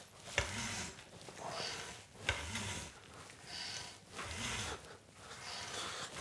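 Support arm and line of a cheap EasyRig Minimax copy camera-support vest giving a strange noise as the camera is moved up and down on it, repeating about once a second, with two sharp clicks. The owner finds the noise worrying.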